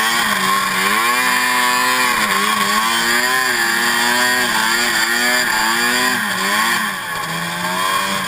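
Modified mountain snowmobile's two-stroke engine running hard under the rider while climbing through powder. Its pitch rises and falls several times with the throttle, then drops about seven seconds in as the sled eases off.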